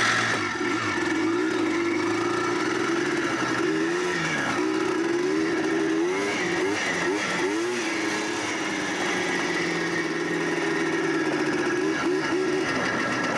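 Yamaha Blaster's freshly rebuilt 195cc two-stroke single-cylinder engine running under way, its pitch rising and falling several times as the throttle is opened and closed, steadier in between.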